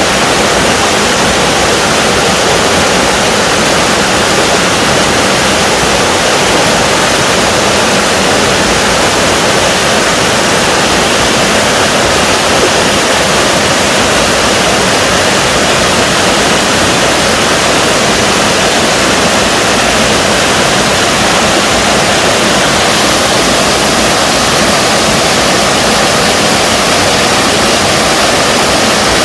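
Small waterfall in a mountain stream, water pouring and splashing in a loud, steady rush.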